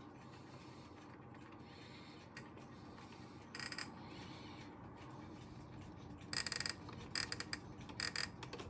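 Rapid mechanical clicking and rattling from a Copal RD-700 flip clock radio's mechanism over a faint steady hum. There is one short burst about three and a half seconds in, then repeated bursts from about six seconds on.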